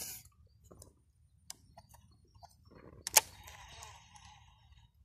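Casting a lure: a sharp click about three seconds in, then a brief whirr of the fishing reel's spool paying out line. Light rustling and small clicks from handling the rod among dry palm fronds come before it.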